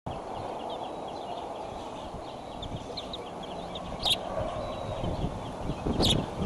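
Outdoor nest-camera sound: a steady low wind rumble with many short, thin bird chirps, and two sharp, louder sounds about four and six seconds in.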